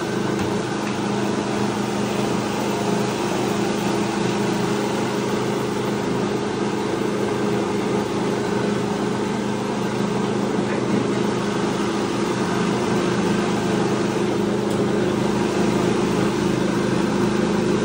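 A small rice mill (huller) running steadily while hulling paddy. It gives a constant machine hum with a grinding rush of grain over it.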